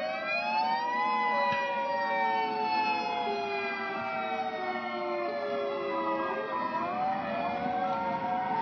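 Outdoor tornado warning siren wailing: its pitch rises for about a second, falls slowly over several seconds, then starts to rise again near the end, with other lower tones overlapping. It sounds the alert for a tornado warning.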